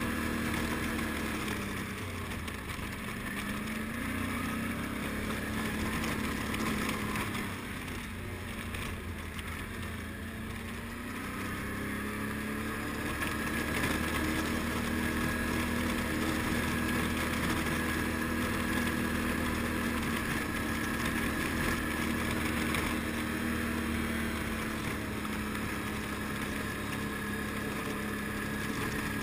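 ATV engine running under load as the quad climbs a trail, its pitch rising and falling a few times with the throttle.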